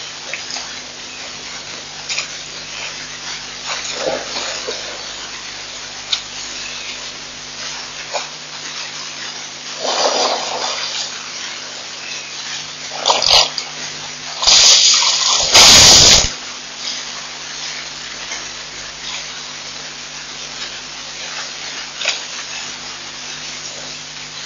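African elephant at a waterhole, with splashing water and the elephant's snorts and blowing over a steady hiss and faint hum. A loud rush of noise a little past the middle lasts about two seconds and is the loudest sound.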